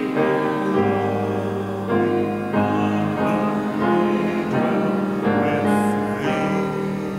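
Grand piano playing slow, sustained hymn-style chords, with a new chord about every second.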